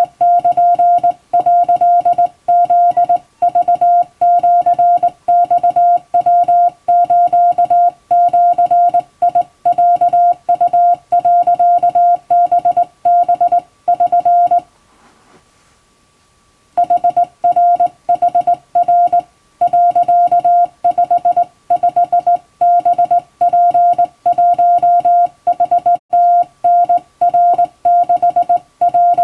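Hand-keyed Japanese Wabun Morse code: a steady tone of about 700 Hz switched on and off in quick dots and dashes. It stops for about two seconds near the middle, then carries on.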